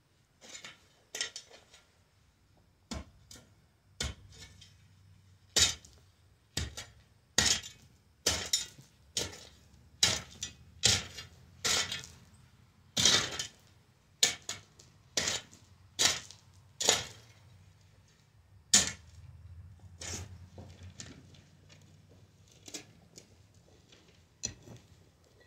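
Metal shovel blade scraping and striking into a packed dirt and gravel floor, one gritty stroke about every second, then fewer and fainter strokes near the end.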